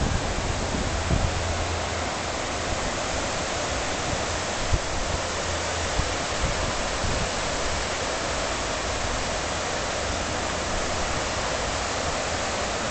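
Steady rushing of the River Moy's fast, broken water through the Ridge Pool below its weirs, an even hiss and rumble without change.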